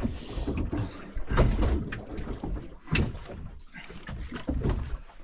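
Irregular knocks and thumps from a fishing boat's deck and gear as a rod is worked against a hooked fish, over a low rumble, with one sharper click about three seconds in.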